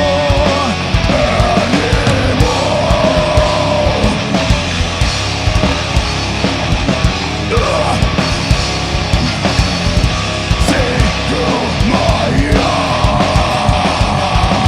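Live rock band playing a loud, driving song: electric guitars held over busy drums.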